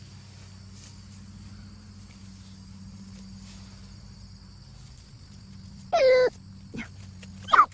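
Short, high animal cries, a loud one about six seconds in and another just before the end with a faint one between, over a steady high drone of insects.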